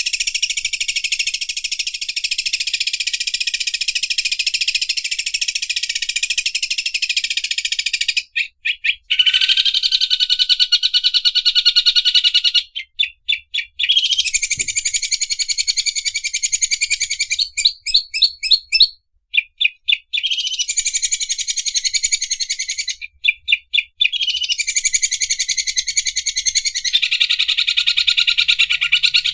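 Greater green leafbird (cucak ijo) singing its 'mesin obras' song: long, very fast, buzzing trills like a sewing overlocker, broken every few seconds by short stuttering notes.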